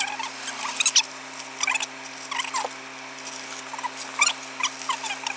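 Paper food wrappers crinkling and rustling in the hands, many short squeaky crackles, over a steady low hum.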